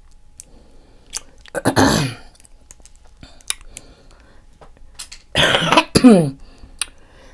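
A person coughing and clearing the throat: one short burst about two seconds in and two louder ones a little past the middle, with small clicks in between.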